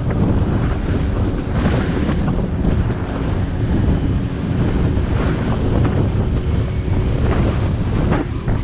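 Steady wind noise rushing over the microphone of a moving rider, a dense low rumble with hiss.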